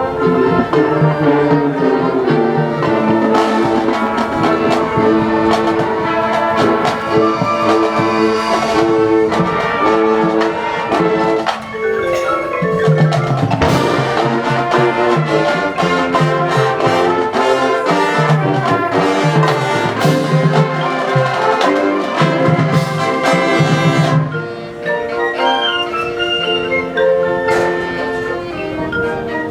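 High school band playing loudly: brass (trumpets and trombones) over percussion and marimba/xylophone-type mallet instruments. About five seconds before the end the full brass sound drops away, leaving a lighter passage of mallet notes.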